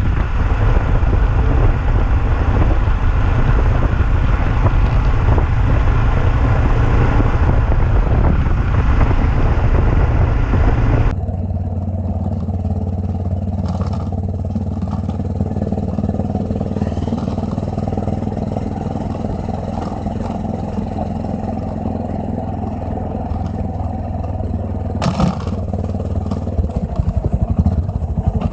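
Yamaha XT660Z Ténéré's single-cylinder engine running on the move, under wind noise and the clatter of an aluminium Roncar top case, a case described as very noisy. About eleven seconds in the sound changes abruptly to a quieter, steady engine note, broken by a couple of sharp knocks.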